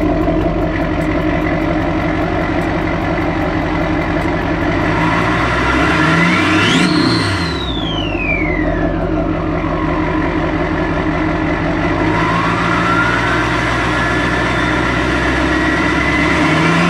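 LLY Duramax 6.6-litre V8 turbodiesel running, fitted with a 3-inch downpipe and a 68 mm turbo, revved twice. The turbo's whistle climbs and falls in the middle and climbs again near the end.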